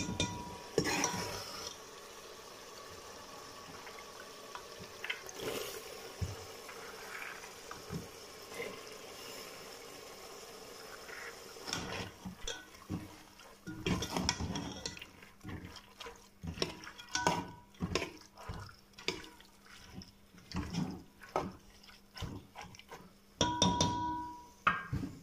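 A steel ladle stirring chana dal into sizzling masala in an aluminium pressure cooker: a steady hiss, then from about halfway many irregular scrapes and clicks of the ladle and grains against the pot. Near the end comes a louder rush as more dal is tipped in.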